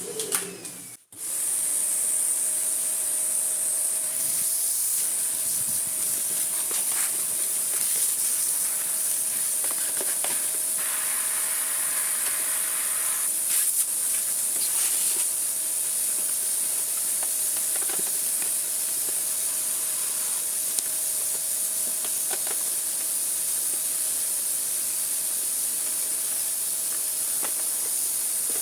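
Vacuum cleaner motor running steadily, a loud rushing hiss of air with a steady whine under it. It cuts out for a moment about a second in, then runs on unchanged, with a few faint knocks.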